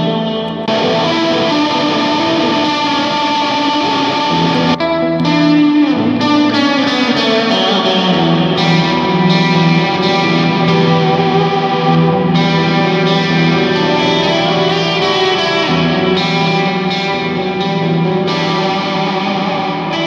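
Stratocaster-style electric guitar played live through effects, long sustained notes and chords ringing one into the next.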